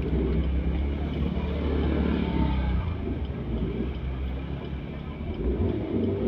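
A vehicle on the move: a steady low engine hum with road noise throughout.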